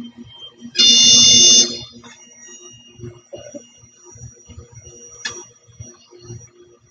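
A loud, high-pitched, buzzer-like tone sounds once for under a second about a second in, over faint low rumbling.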